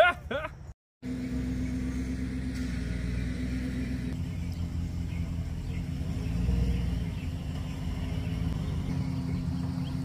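Pickup truck engine running at idle, a low steady hum that swells briefly about six to seven seconds in.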